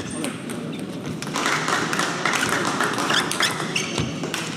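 Table tennis ball tapping off bats and table: a run of sharp ticks at uneven spacing in a large hall.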